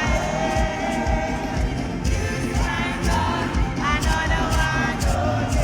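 Gospel worship music: several voices singing over a band with a steady drum beat.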